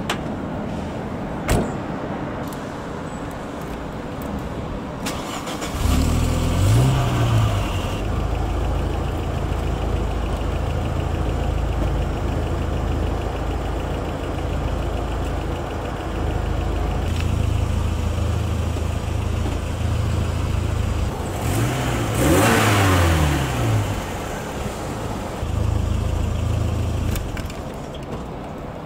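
A single sharp knock, then about six seconds in a car engine starts with a short flare of revs and settles to a steady idle. Past the two-thirds mark it is blipped up and back down twice, and it is switched off near the end.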